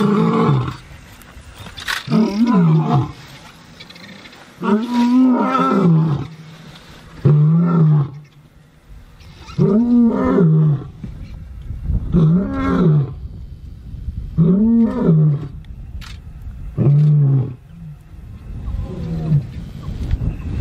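Male lion roaring in a bout of about nine deep calls, each rising and then falling in pitch, coming every two to two and a half seconds, the later ones shorter and fainter.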